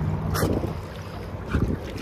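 Wind buffeting a phone's microphone over open water, a steady rumbling rush with two brief stronger gusts, one about half a second in and one near the end.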